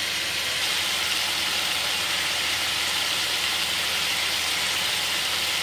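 Beef steaks sizzling steadily in a hot cast-iron skillet, the second side searing.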